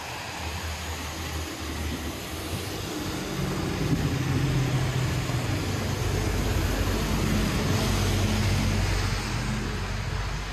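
A motor vehicle's engine passing close by, building from about three seconds in and easing off near the end, over a steady hiss of rain and wet street noise.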